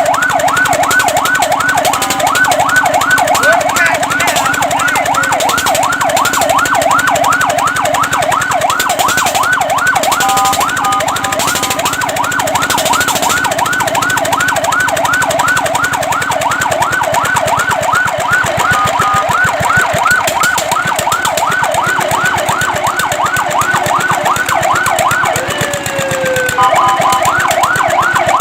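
Fire truck siren sounding a fast yelp, its pitch sweeping up and down about four times a second. Short steady tones break in a few times.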